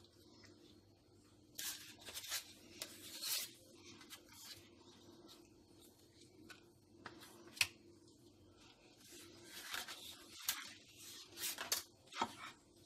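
Dry lasagna sheets being handled and laid into a glass baking dish: a few short, faint rustling and scraping sounds, with quiet gaps between them.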